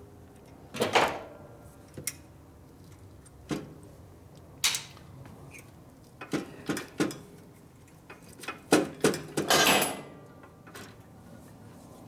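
Scattered metal clicks and knocks as the rocker box cover on a 1967 Harley-Davidson shovelhead is worked loose by hand, with a quick cluster of knocks and a short scrape a little before the end.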